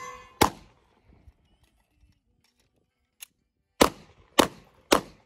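Glock 17 pistol firing: one shot about half a second in, then a quiet stretch of about three seconds with a few faint clicks of a magazine change, then three quick shots about half a second apart near the end.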